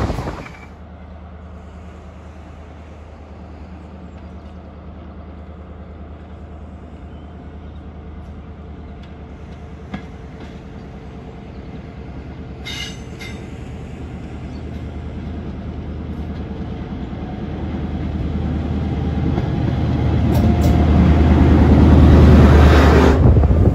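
Diesel train approaching and passing close beneath: its engine drone is steady and faint at first, then grows much louder over the last several seconds as it comes underneath, with a few brief sharp sounds along the way.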